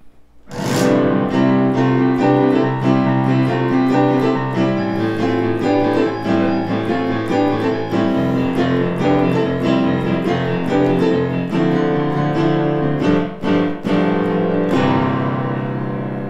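Yamaha digital piano played with full, rhythmic chords, a piece heard as fiery, flaring-up music. It starts about half a second in, breaks off briefly twice near the end, and closes on a held chord that fades.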